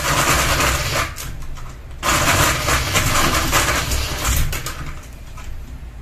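Unbalanced ceiling fan, running with a single blade and a ball of yarn on its hub, wobbling and rattling loudly over its low motor hum. The rattle comes in two bursts, about a second long and then about three seconds long, before dropping back to the hum.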